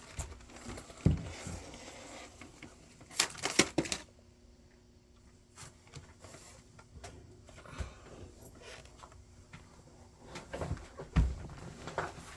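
Objects being moved and set down on a table: a few sharp knocks and taps, with a cluster of them about three seconds in and another near the end, and light rustling between.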